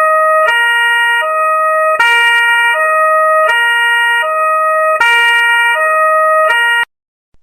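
Musical multi-tone car horn playing a short tune of alternating notes, repeated in a loop about every three seconds. It cuts off abruptly shortly before the end.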